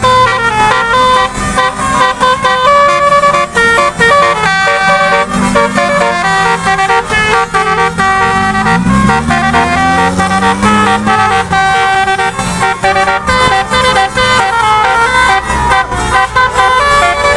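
Basuri telolet horn of a Cherry Blossom bus, a multi-tone bus horn playing a melody as a quick run of short, changing horn notes. About halfway through, a low sound rises and falls in pitch underneath.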